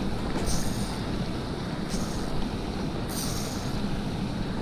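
Steady rush of a small mountain stream's riffles mixed with wind on the microphone. A short, high hiss comes three times, about a second and a half apart.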